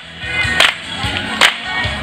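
Line dancers clapping together twice, about 0.8 s apart, in time with country dance music.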